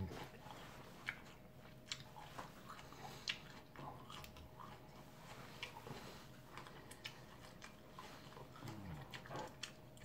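Mouth sounds of a man chewing a raw habanero pepper: soft, irregular small clicks of chewing with lips closed.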